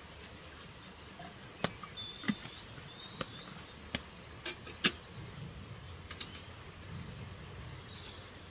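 A handful of sharp clicks and knocks, about five over the first five seconds, from camping gear being handled, with a bird chirping faintly now and then.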